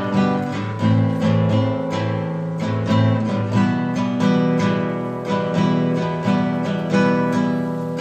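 Acoustic guitar music: chords and notes struck in a regular rhythm, each ringing on.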